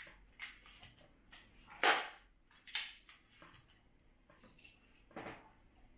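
Clicks and knocks from handling a Webley Alecto multi-pump air pistol and a metal pellet tin during reloading, a dozen or so irregular strokes, the loudest about two seconds in.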